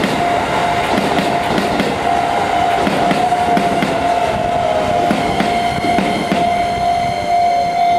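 Shin-Keisei N800 series electric train running past, its wheels clicking over rail joints, with a steady high-pitched whine over the rumble.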